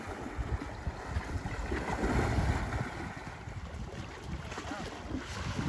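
Elephants wading through shallow floodwater, the water sloshing and splashing around their legs, with wind buffeting the microphone.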